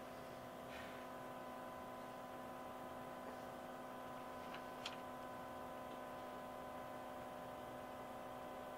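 Steady electrical hum made of several constant tones, with a few faint ticks about a second in and again around the middle.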